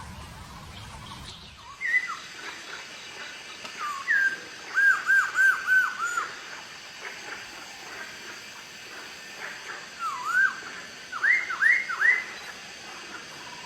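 Poksay hongkong laughingthrush singing loud, clear whistled phrases: a run of five quick repeated notes, then a pause and another phrase of rising whistles near the end.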